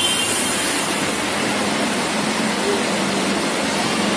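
Steady vehicle running noise: an even rush across the whole range with a faint low hum underneath.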